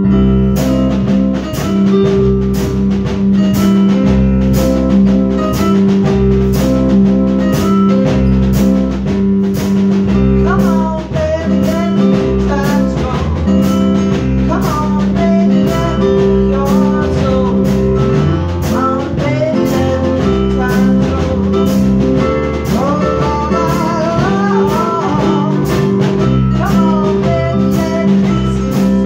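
A small band playing live: two electronic keyboards and a drum kit keeping a steady beat, with a voice singing over parts of it.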